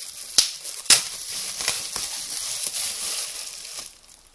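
Bubble wrap crinkling and rustling as it is pulled open by hand, with a few sharp crackles, the loudest about half a second and a second in. It dies away near the end.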